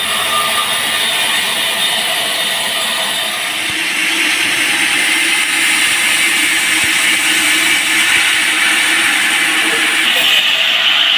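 Band sawmill running, its blade cutting through a large teak log with a steady, loud whine that grows louder and brighter about four seconds in.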